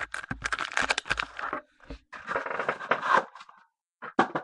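Clear plastic trading-card pack wrapper crinkling and tearing as it is opened, in two long stretches of crackly rustling and a short one near the end.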